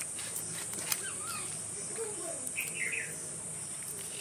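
Steady high-pitched drone of insects, with short bird chirps about a second in and again near three seconds. A single faint click comes about a second in.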